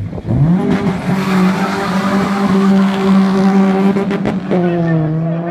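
Daihatsu Mira Turbo and Honda Civic EP3 accelerating hard off a drag strip start line: engine revs sweep up within the first second and hold high, then drop at a gear change about four and a half seconds in and start climbing again.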